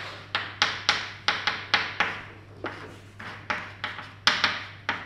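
Chalk tapping and scraping on a blackboard as a line of equations is written: a quick run of sharp clicks, about three or four a second, thinning out for a moment about halfway through. A steady low electrical hum runs underneath.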